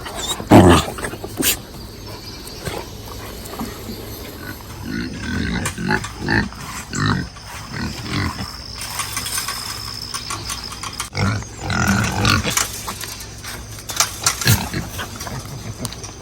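Pigs grunting: runs of short low grunts, with a loud sharp sound about half a second in.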